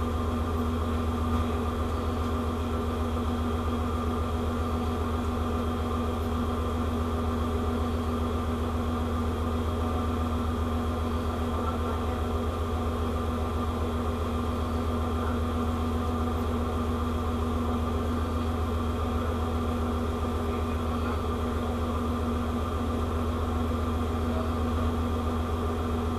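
Steady, unchanging hum of a ship's machinery and ventilation, a constant low drone with a noisy hiss above it.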